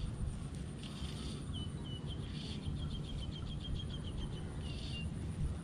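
A small animal calling in a rapid run of short high chirps, about five a second. The calls start about a second and a half in and stop near the end, over a steady low rumble.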